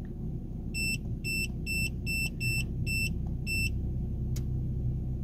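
Seven quick electronic beeps from a Vident iEasy310 code reader's keypad as it is stepped through its live-data items, about two to three a second, over the steady low hum of the car's engine idling at about 950 rpm, heard inside the cabin. A single click comes near the end.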